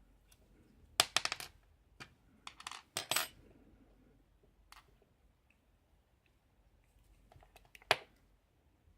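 Small metal lock parts clinking and clicking as the lock is taken apart by hand: a quick run of metallic clinks about a second in, another cluster around three seconds, and one sharp clink near the end.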